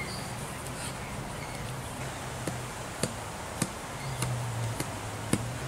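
Sharp taps of a wooden stick, starting about halfway in and coming in an even rhythm of roughly two a second, over a faint low hum that comes and goes.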